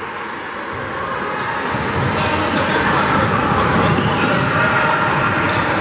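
Indoor basketball game in a gym: the ball bouncing on the hardwood, sneakers squeaking in short high chirps, and the murmur of spectators, all echoing in the large hall.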